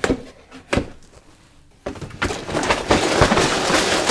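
A cardboard LEGO set box being opened: two sharp clicks as the flap is worked loose, then from about two seconds in a loud, continuous crinkling rustle of the clear plastic parts bags shifting as the lid comes up.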